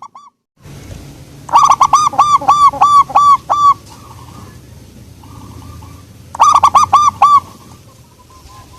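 Zebra dove (perkutut) singing: a quick run of about ten loud, clipped coo notes, then a shorter run of about six a few seconds later, with softer coos between.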